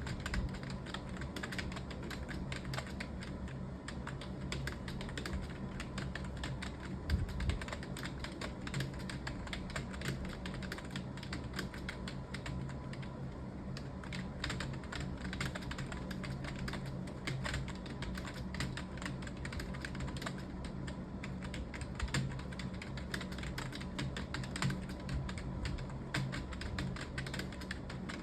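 Computer keyboard being typed on quickly and continuously, a rapid irregular run of key clicks over a steady low hum.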